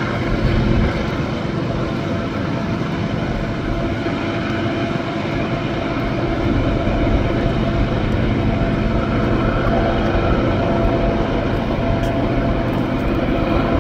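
CN diesel helper locomotives pushing at the rear of a heavy freight train, their engines working hard up the grade. A steady, deep rumble with a few held tones.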